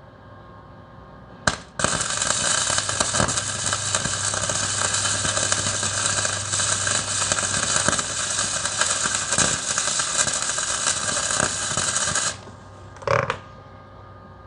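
Electric arc welding on a cast-iron tractor part: a quick strike of the arc, then about ten seconds of steady crackling hiss as a bead is laid. It stops abruptly, and a short burst follows near the end.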